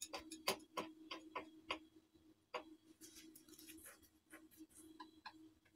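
Light, irregular clicks and taps of hands pressing the edges of a filled dough round shut on a countertop, over a faint steady hum.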